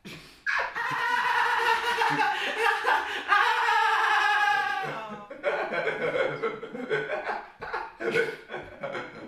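Young men laughing hard: one long, unbroken laugh over the first few seconds, then choppier bursts of laughter.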